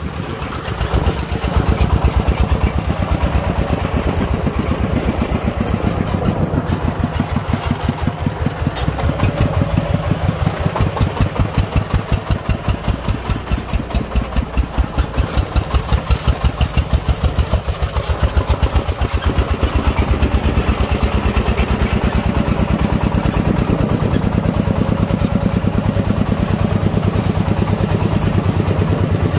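Công nông farm truck's single-cylinder diesel engine chugging steadily with a rapid, even beat as it pulls a load of sand along a lane.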